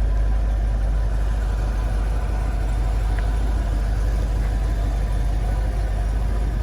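A car engine idling steadily: a low, even rumble with no change in speed.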